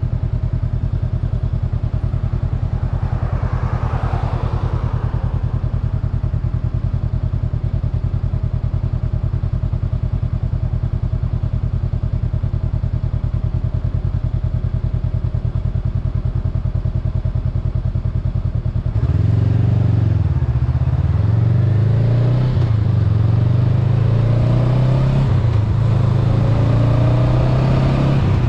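Honda Rebel 500's 471 cc parallel-twin engine idling steadily, then about two-thirds through it pulls away, the revs rising and dropping back through several upshifts.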